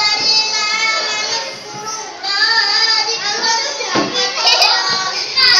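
A young boy's voice reciting in a sing-song chanting style, with long wavering held notes. There is a short pause about two seconds in.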